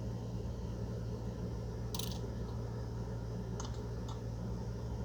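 A single snip of scissors cutting sewing thread about two seconds in, followed by a couple of faint clicks, over a steady low hum.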